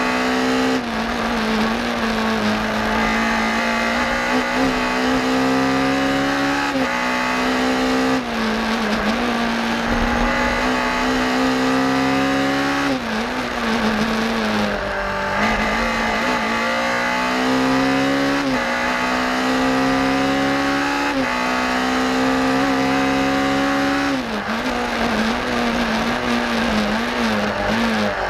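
BMW M3 rally car engine running hard at high revs, heard from inside the cabin. Its pitch climbs through each gear and drops sharply at every shift, with a few dips where the car slows for corners.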